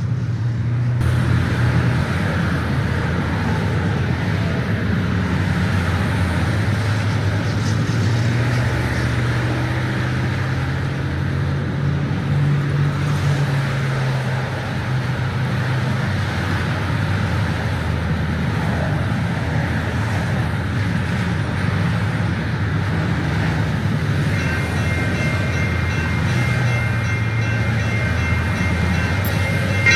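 Diesel-hauled passenger train running steadily, with a continuous low engine drone and rail noise. A cluster of high steady tones sets in about five seconds before the end.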